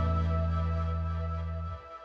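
Background music with long held chords over a deep bass, fading out; the bass drops away near the end, leaving faint high notes.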